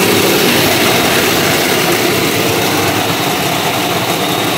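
Electric food processor motor running, grinding dry rolled oats in its bowl: a loud, steady whirring.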